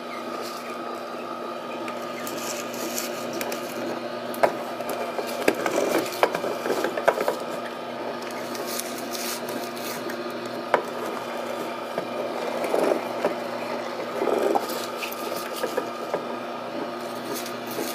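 Slow-speed masticating juicer running with a steady low hum while it crushes spinach leaves. Irregular crunching, rasping and sharp snaps come and go, thickest in the middle of the stretch.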